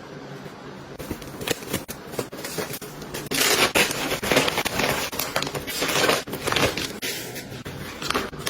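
Things being handled close up: crinkling and rustling with many sharp clicks, starting about a second in and growing louder after about three seconds.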